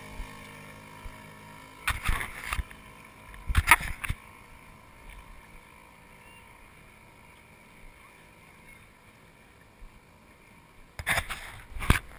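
Small outboard motor on a little flat-bottomed boat running steadily, its drone fading as the boat pulls away. Short bursts of rustling and knocks close to the microphone come about two, four and eleven seconds in, louder than the motor.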